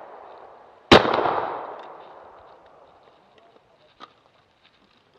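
A single shotgun shot about a second in, a sharp crack followed by an echo trailing off over a second or so. A faint click follows about four seconds in.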